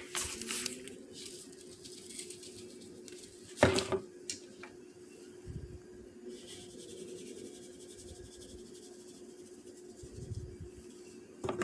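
Handling noise from a plastic seasoning jar and its lid over a steady low hum: one sharp knock about three and a half seconds in, then a couple of faint clicks and soft dull thuds, while powdered chicken bouillon is shaken from the lid into a bowl.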